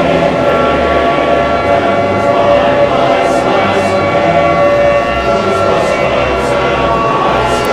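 Loud, steady, siren-like drone of several held tones sounding together, over a low, uneven pulsing bass.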